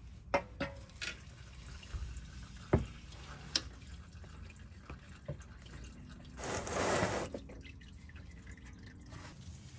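Transmission fluid dripping into a drain pan in a handful of separate, irregular drops, with a short rush of noise about two-thirds of the way through.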